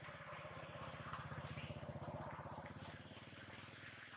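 Steady rain falling on stone and leaves, a continuous hiss. Underneath runs a low, rapid pulsing hum of unclear origin.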